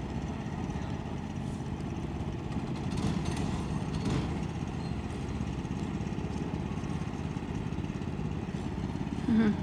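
Small racing kart engines running steadily, a low continuous drone that swells slightly a few seconds in.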